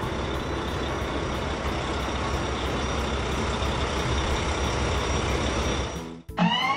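Truck engine running steadily, a rumbling sound effect for an animated construction vehicle. It cuts off about six seconds in, and plucked music with rising notes begins near the end.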